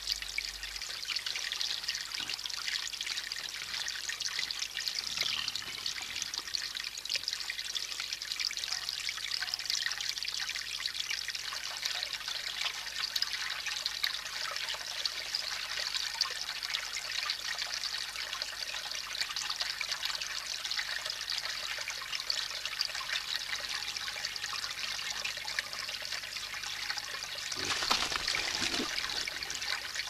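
Water trickling steadily down a small rock-cascade garden fountain, with a brief louder noise near the end.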